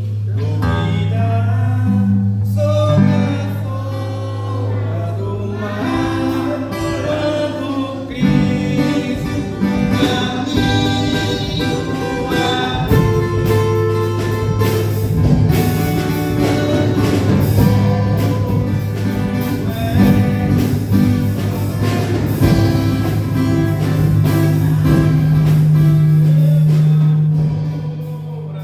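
Gospel hymn sung with live band accompaniment: a long held bass note under the opening, then a steady beat comes in about eight seconds in.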